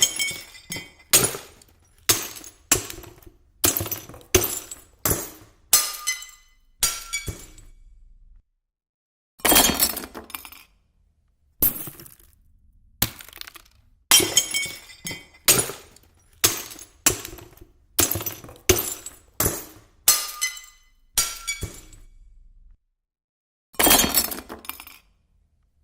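A string of separate glass-breaking sound effects: sharp shattering impacts roughly once a second, each followed by a brief tinkle of falling shards, with two short silent gaps between groups.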